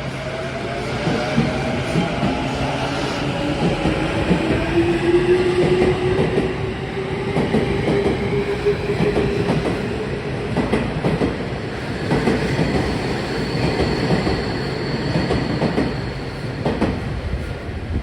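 A 10-car electric commuter train pulling away from a station platform. Its motor whine rises in pitch as it accelerates over the first several seconds, then fades, while the wheels clack over rail joints throughout.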